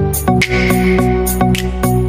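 Background music with a steady beat and held, sustained notes.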